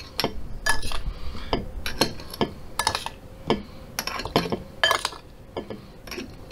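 A spoon knocking and clinking against a dish as mashed cranberries with sugar are stirred and scooped: a string of irregular clinks, about two a second.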